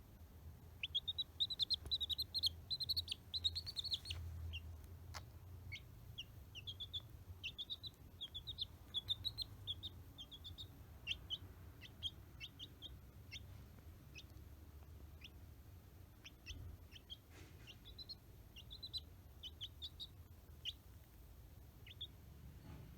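A three-day-old domestic chicken chick peeping: quick runs of short, high peeps in the first few seconds, then scattered single peeps. A steady low hum runs underneath.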